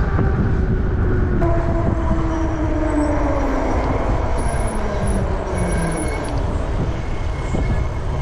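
Wind rumbling over a moving microphone during an e-bike ride, with a whining tone that slides steadily down in pitch over a few seconds.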